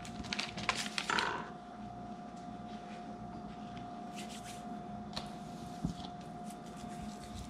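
Brief rustling and rubbing from hands working dough and plastic sheeting for about the first second, then a quiet room with a faint steady hum and a few soft clicks.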